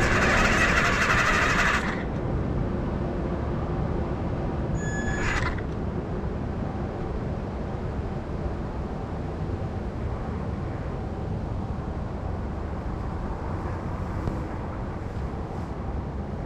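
Steady low outdoor rumble, like traffic, after a louder hissing noise in the first two seconds and a brief higher-pitched sound about five seconds in.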